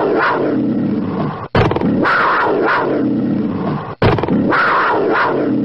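Big-cat growling sound effect, played as a short loop that cuts off and restarts twice.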